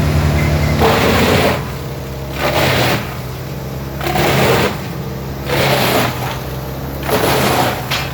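Vermeer BC1800XL drum wood chipper's John Deere diesel engine running steadily under load while the chipper chews through a log. A surge of chipping noise comes about every second and a half, five times.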